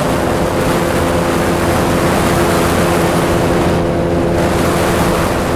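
Vespa P200E 200cc single-cylinder two-stroke engine pulling the scooter up a hill in third gear, its pitch holding steady under load.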